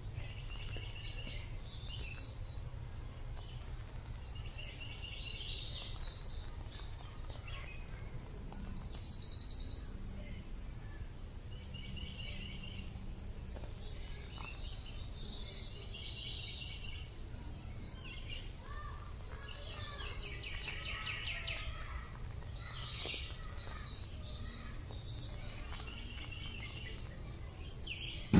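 Outdoor ambience: small birds chirping and trilling again and again over a steady low rumble. A thin, high, steady buzz runs for a few seconds in the middle, and a sharp click comes at the very end.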